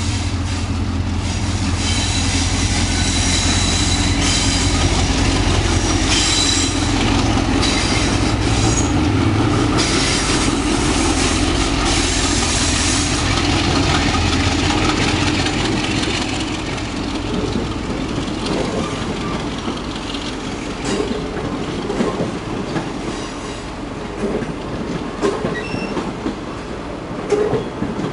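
A locomotive-hauled intercity passenger train of 25Z coaches passing close at speed. A heavy low rumble from the locomotive lasts for the first dozen or so seconds. After that the coaches run by more quietly, with scattered clicks of the wheels over rail joints.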